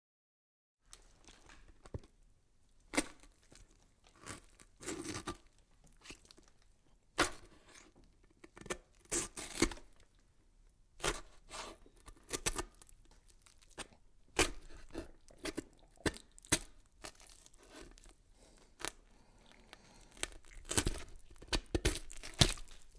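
Irregular crackling and tearing-like noise: a long run of sharp cracks and short rustling bursts at uneven intervals, starting about a second in.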